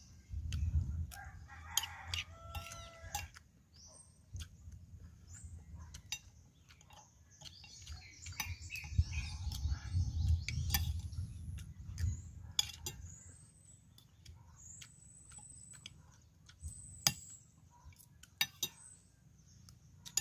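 A rooster crowing, once about two seconds in and again around the middle, over the clinks of a spoon and fork on ceramic plates.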